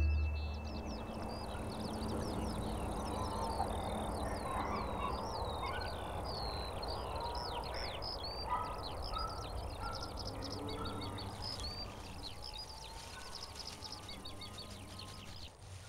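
Many small birds chirping and twittering in quick succession, dense at first and thinning out after about ten seconds, over a steady rushing background of outdoor noise.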